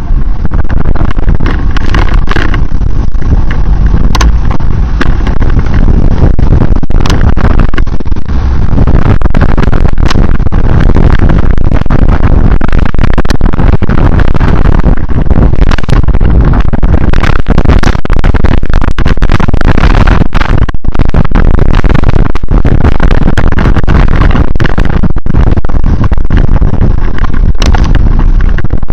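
Wind buffeting a camera microphone on a moving vehicle: a loud, near-clipping rumble with constant crackling, with the vehicle's road noise underneath.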